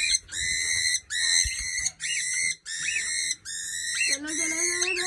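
A small pet parrot screeching over and over, about two harsh calls a second, each with a quick upward flick. These are the alarm calls of a bird being caught and held by hand. A lower call joins near the end.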